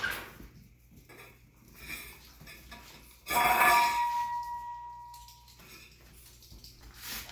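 A metal object clatters about three seconds in and rings on with a clear tone that fades over about two seconds, amid small scattered knocks.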